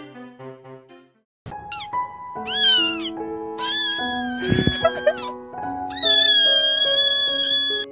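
Crying-cat meme audio: a kitten meowing four times, the last two meows long and drawn out, over slow music with held chords. A thump sounds about four and a half seconds in.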